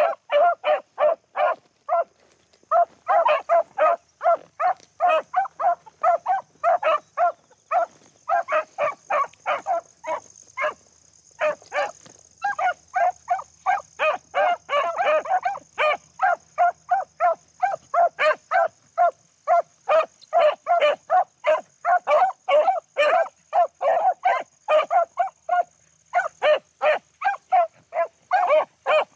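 Beagles giving tongue on a rabbit's trail: a near-continuous run of short, rapid barks, several a second, that breaks off briefly about ten seconds in and then goes on. It is the sound of the hounds running the rabbit's scent.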